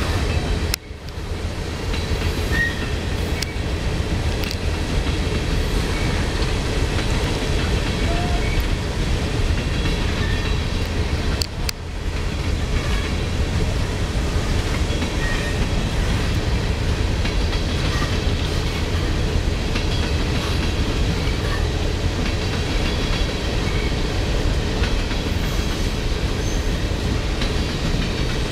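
A CSX coal train of hopper cars rolling past at speed, a steady loud rumble and rattle of steel wheels on rail.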